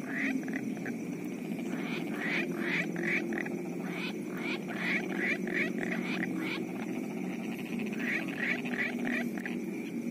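Frogs calling in a flooded rice paddy at night. A dense, continuous low chorus runs underneath, with runs of short, quick, higher-pitched calls repeated about three times a second that come and go in several bouts.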